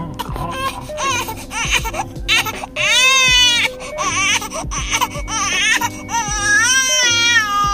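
A baby crying, with two long, high, wavering wails about three and six seconds in, over background music.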